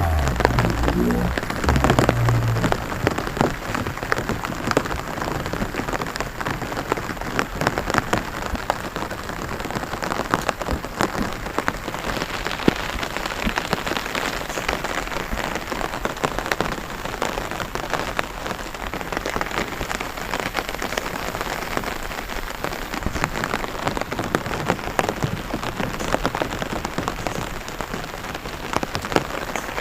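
Rain pattering steadily in a rice paddy, a dense run of many small drop taps, with a low rumble in the first couple of seconds.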